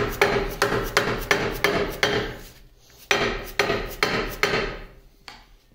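A mallet striking a cast-iron multi-groove V-belt pulley on a 1950 LeBlond Regal lathe to knock it loose from its shaft, where it is stuck fast. Quick blows about three a second, each ringing briefly, in two runs with a short pause between and a lighter knock near the end.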